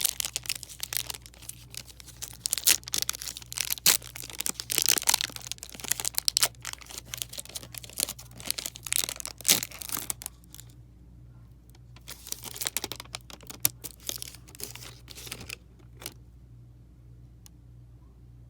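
A foil trading-card pack being torn open and its wrapper crinkled, in dense bursts of crackling for about ten seconds, then a few shorter rustles before it falls quiet apart from a low hum.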